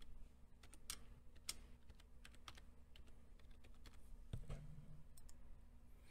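Faint, irregular keystrokes on a computer keyboard as a password is typed, with a slightly louder knock a little over four seconds in.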